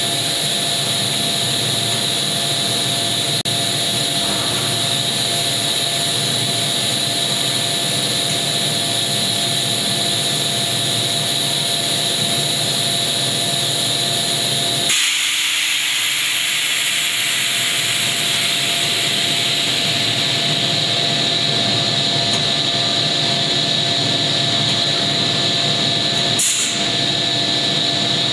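Extrusion blow molding machine running steadily with the mold closed, a loud machine drone with a few steady tones. About halfway through the low rumble drops away and a hiss takes over, and near the end comes one short, sharp sound.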